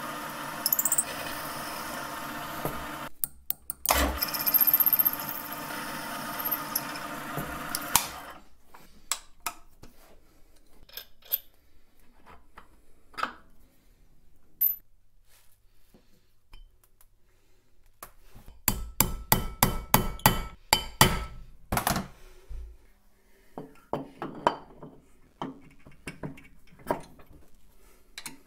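Milling machine running as a drill bores a pin hole in the seam between a cast-iron brake drum liner and the hub, stopping about eight seconds in. Then scattered metal clinks and knocks as the hub is handled, with a rapid run of sharp metal taps about 19 to 22 seconds in.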